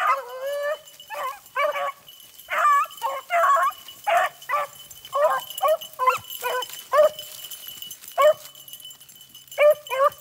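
Hunting beagles barking and yelping in quick, excited bursts while nosing at the ground, giving voice on a rabbit they have jumped.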